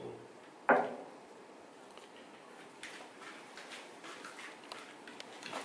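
Handling noise from small hand tools and iPad parts on a workbench: one sharp knock under a second in, then scattered light clicks and taps.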